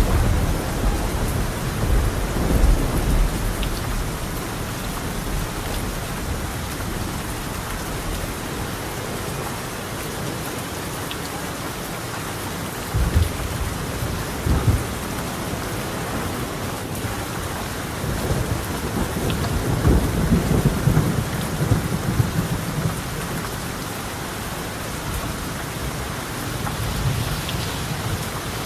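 Steady heavy rain falling on a tiled roof, with rolls of thunder rumbling low at the start, twice briefly about halfway through, and again longer a little later.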